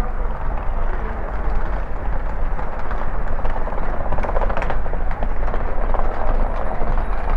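Wind rushing over the microphone of a bike-mounted GoPro while riding, a loud, steady rumbling noise, with a burst of rattling clicks a little past four seconds in.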